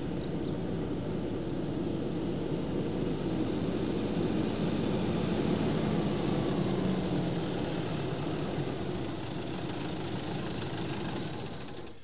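Pickup truck driving up a dirt track, its engine and tyre noise growing louder as it comes closer, peaking about halfway through, then easing off as it slows.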